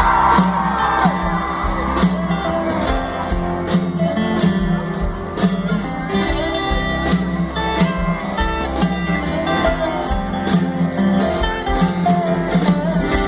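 Live country band playing: electric and acoustic guitars over a steady drum beat.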